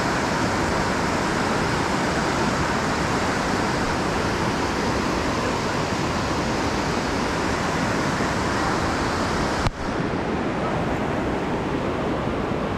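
Steady rushing of whitewater rapids on the Youghiogheny River, with a single sharp click about ten seconds in.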